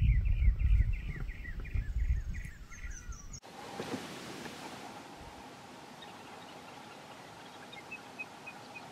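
A bird calling a run of short, downward-slurred notes, about four a second, fading out over a loud low rumble. About three and a half seconds in, the sound cuts to a faint steady hiss with a few faint chirps near the end.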